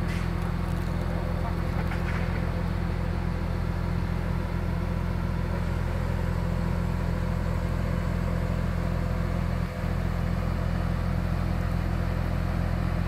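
Beiben 8x8 crane truck's diesel engine running steadily at a constant speed, a deep even hum, with a brief dip in level about ten seconds in.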